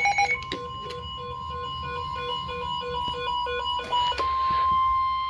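NOAA Weather Radio 1050 Hz warning alarm tone sounding steadily, the signal that a warning, here a severe thunderstorm warning, is about to be read. For the first four seconds a rapid beeping that alternates between a low and a high pitch, about three to four beeps a second, sounds over it; then the steady tone carries on alone and louder.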